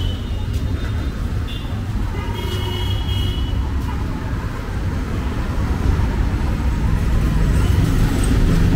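City street traffic: a steady low engine rumble that grows louder toward the end as vehicles come close, with a couple of short horn toots in the first few seconds.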